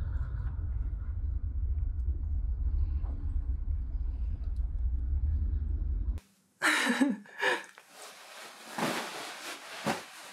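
Steady low rumble of road and engine noise inside a moving taxi's cabin, which cuts off suddenly about six seconds in. Then a brief voice sound and a few soft rustles.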